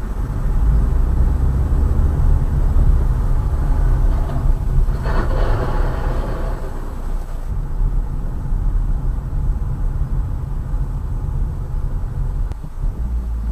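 Steady low rumble of road and engine noise from a moving car, picked up by a dashcam inside the car. A brief rise in hiss comes about five seconds in.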